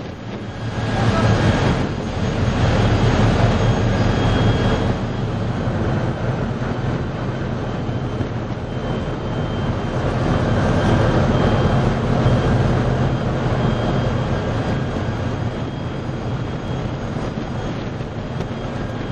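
Tugboat's engines running steadily as a low, continuous drone, with a rushing noise over it that swells louder about a second in and again later.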